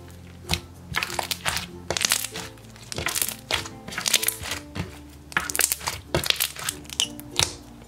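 Foam-bead 'popcorn' slime with foam and marshmallow beads being squeezed and pressed, making clusters of crackles and pops that come several times a second. Background music plays underneath.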